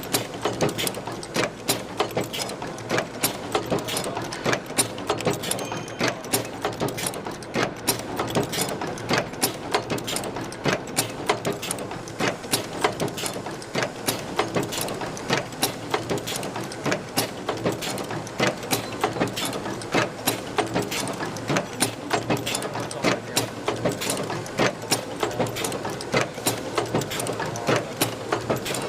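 Automatic chain-making machine running, its mechanism clacking rapidly and repeatedly over a steady mechanical rattle.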